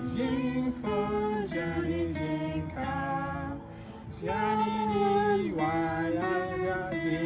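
Acoustic guitar played as accompaniment to a woman and a man singing a song together, the voices holding long notes.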